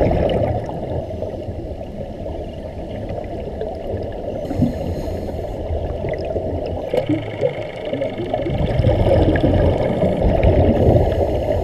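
Muffled, steady rush and gurgle of sea water, dull and low with little treble.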